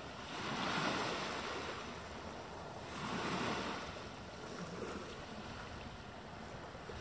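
Small waves washing up a sandy beach, the surf hissing and swelling twice, about a second in and again about three seconds in, then easing to a steady wash.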